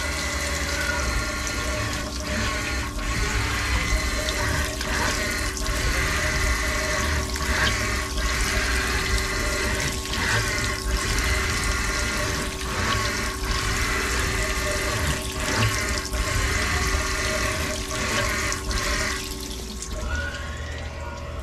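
Tormach 1100MX CNC mill spindle running at 1200 RPM while it rigid-taps M8 form-tap threads in aluminium, with flood coolant splashing steadily over the part. The spindle sound dips briefly about once a second as the tap reverses out of each hole. The machine stops shortly before the end.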